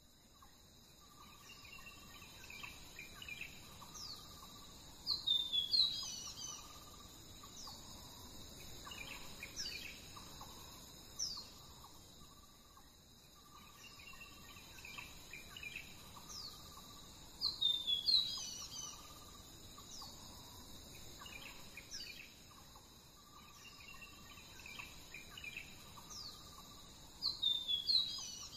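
Birds calling and chirping with quick falling whistles, over a steady high-pitched insect drone. The bird calls come loudest in bunches about five seconds in, again around eighteen seconds, and near the end.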